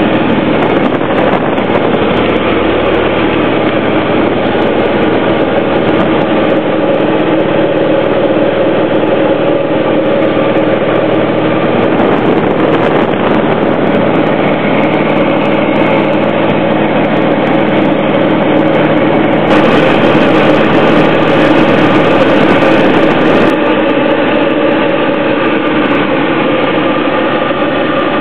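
Cabin noise of a Diamond Eclipse (DA20-C1) light aircraft in flight: its four-cylinder Continental piston engine and propeller running at a steady drone. For a few seconds about two-thirds of the way through, an added hiss makes it slightly louder.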